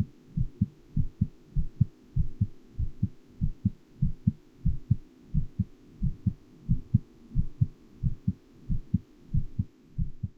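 Human heartbeat: an even rhythm of paired low lub-dub beats, about one and a half beats a second, over a faint low hum.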